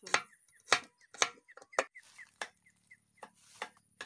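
Kitchen knife slicing shallots and garlic on a small wooden board: a series of sharp knocks, about two a second.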